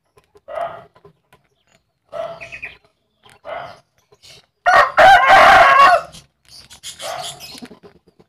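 Bangkok rooster, sick with ngorok respiratory disease, giving several short calls about a second apart, then one loud drawn-out call about five seconds in.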